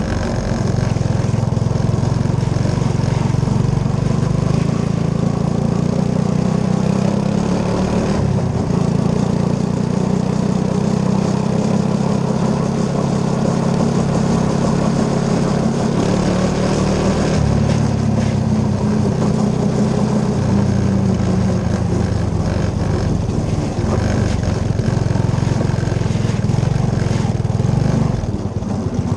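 Three-wheeler engine running while riding, heard close to a rolling tire, its pitch shifting now and then with the throttle. Tire noise over wet pavement, gravel and grass runs under it.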